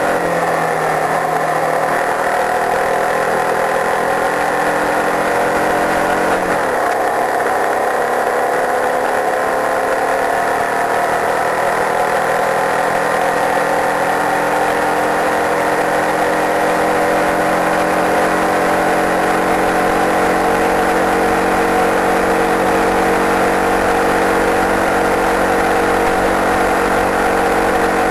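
Open-wheel race car's engine running hard on track, its pitch falling as the car slows at the start, shifting about six and a half seconds in, then rising slowly as it pulls through the rest. Wind noise rushes over the microphone throughout.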